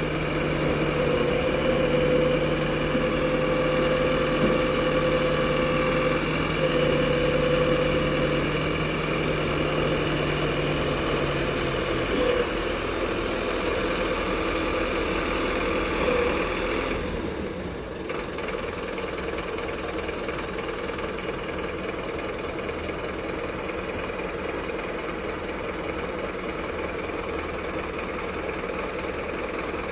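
Diesel truck engine running steadily. About twelve seconds in, one low hum drops out, and a few seconds later the sound turns slightly quieter and duller before settling again.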